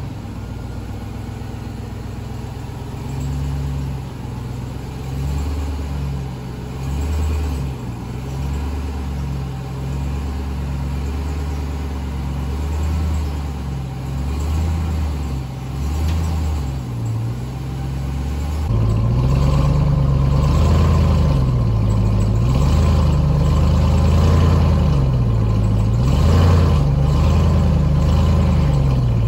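Ram 1500 TRX's supercharged 6.2-liter Hemi V8 running at low speed under load as the truck crawls up a steep ramp. Its pitch rises and falls again and again with small throttle blips. It gets louder about two-thirds of the way through.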